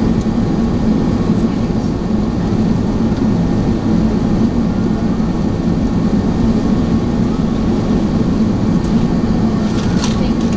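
Steady cabin noise of an Airbus A380 airliner descending to land, heard inside the cabin at a window seat: engine and airflow noise with a steady low drone.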